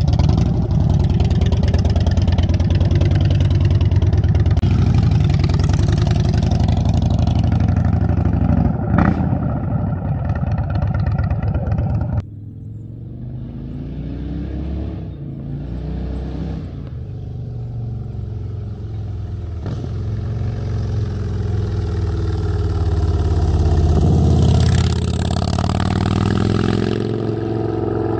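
Harley-Davidson Dyna Street Bob's V-twin engine running close up, loud and steady with its rapid firing pulses. After a sudden cut about twelve seconds in it is heard from farther off, growing louder and rising in pitch to a peak a few seconds before the end, then easing slightly.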